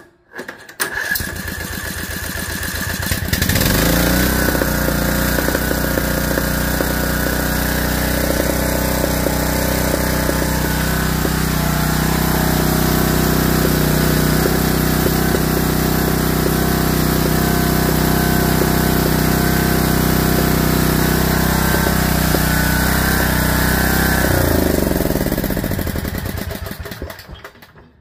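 Briggs & Stratton riding-mower engine cranked by its electric starter for about three seconds before it catches, then running steadily at a constant speed, then switched off near the end and winding down. The owner puts the hard starting down to the valves, the exhaust valve especially, needing adjustment after a head gasket replacement.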